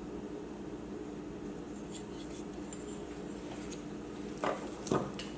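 Small hard parts and tools clicking and scraping as a laptop is worked on by hand, with two louder clunks near the end, over a steady low hum.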